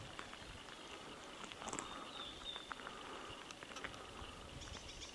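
Quiet outdoor ambience with a few faint bird chirps, a short run of small calls near the end, and scattered soft clicks.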